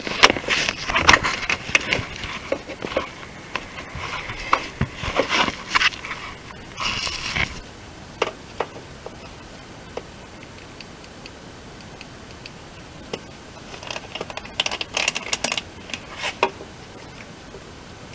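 Bursts of scraping and rustling with scattered sharp clicks, from a gloved hand working inside a car's front wheel arch. The noise is dense for the first several seconds, goes quiet, then returns for a couple of seconds near the end.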